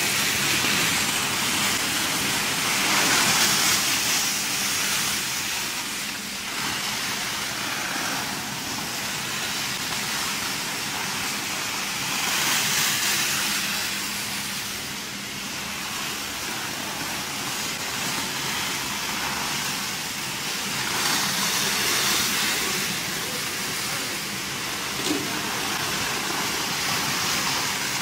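Stretch-wrap film being pulled off hand rolls and wound around machine parts: a steady rasping hiss that swells now and then as the film is drawn off faster.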